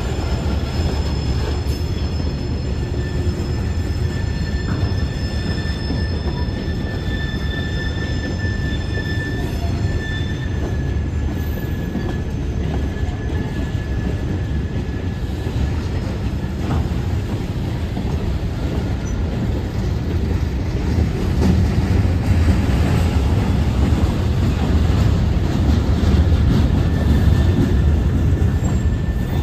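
Loaded freight hopper cars rolling past over a grade crossing: a steady low rumble of steel wheels on rail, with long drawn-out high wheel squeals coming and going. The rumble grows louder for several seconds past the middle, then eases near the end.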